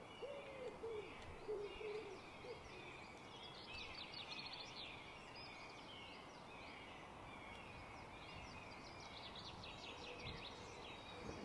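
Faint woodland birdsong: scattered short, high chirps over a steady background hiss.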